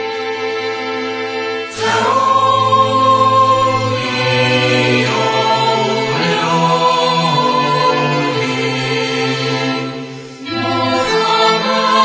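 Background music: a choir singing long held chords, shifting to a new chord about two seconds in and again near the end.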